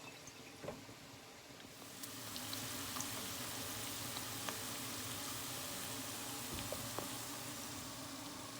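Minced beef sizzling in a frying pan: a steady hiss that comes in about two seconds in and holds level, with a few faint ticks.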